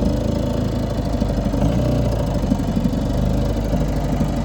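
Small tiller-steered outboard motor running steadily at low throttle.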